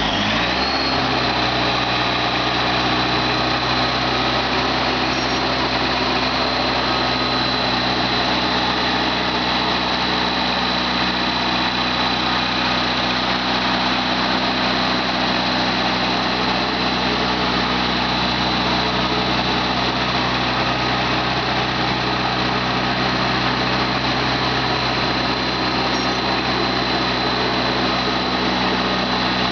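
Wisconsin gas engine of a Core Cut CC6500 concrete saw running steadily after coming up to speed in the first second, with a steady high whine over it.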